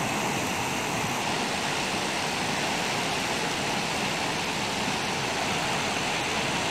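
Steady rush of fast-flowing floodwater, churning around a truck wading through it.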